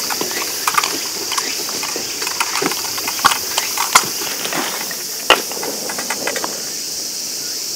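Steady, high-pitched insect chorus with scattered clicks and knocks over it, the sharpest knocks about four and five seconds in.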